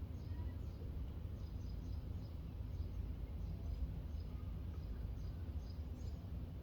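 Steady low rumble of outdoor background noise with faint, scattered high-pitched chirps; no dog barking.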